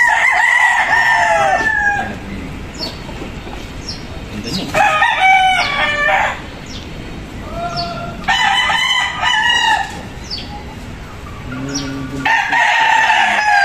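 Gamecocks crowing: four long crows about four seconds apart, each trailing off downward at the end.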